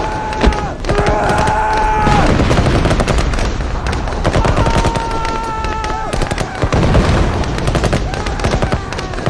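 Battle soundscape of rapid machine-gun fire and scattered rifle shots. Long held high tones sound over the gunfire about a second in and again about halfway through.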